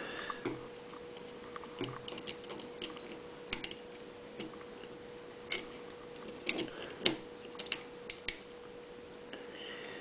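Light, scattered metallic clicks and ticks of a hook pick working the wafers inside a cheap wafer padlock during single-pin picking, at irregular intervals, over a faint steady hum.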